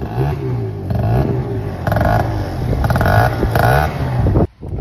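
Small scooter engine with an aftermarket exhaust, revved in repeated throttle blips, its pitch rising and falling about once a second. Its carburettor is not yet jetted properly and it runs on the choke. The sound cuts off suddenly near the end.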